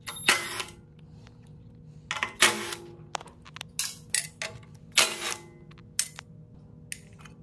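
Milwaukee cordless impact driver run in several short bursts, backing out the 5/16 bolts that hold a small engine's air filter housing, with sharp clicks between the bursts.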